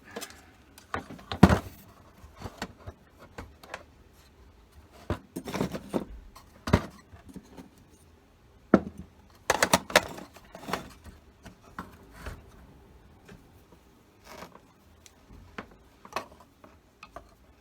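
Irregular clicks, knocks and light metallic clatter of the instrument panel and soldering tools being handled and shifted on a workbench. The loudest knock comes about a second and a half in, with a quick cluster of clicks around ten seconds in.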